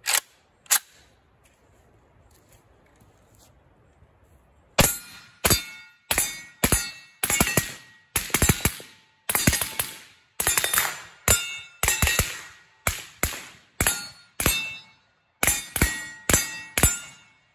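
Suppressed Zastava PAP M92 7.62x39 short-barreled rifle with a Dead Air Wolverine suppressor, fired semi-automatically in a string of about two dozen shots, roughly two a second with a few short pauses, starting about five seconds in. Each shot is followed by a metallic ring, as of steel targets being hit. At the very start, two sharp metallic clacks as the rifle is readied.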